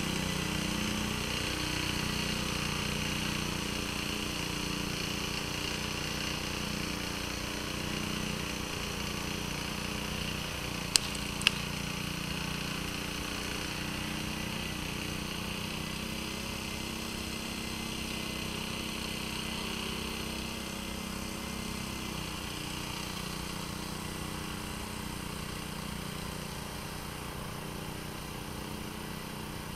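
1949 Bready walk-behind tractor's engine running steadily under load as it drags a branch on a choker cable, slowly growing a little quieter. Two sharp clicks about eleven seconds in.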